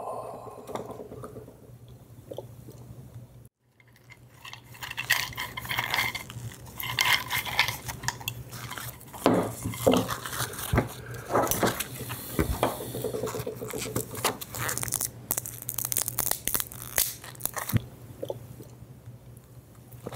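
Irregular clinks and clatters, as of dishes and utensils being handled, starting a few seconds in, over a faint steady hum.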